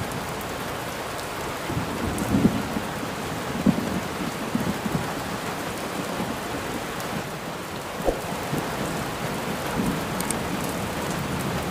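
Heavy rain pouring steadily, with a few low thuds of thunder between about two and five seconds in.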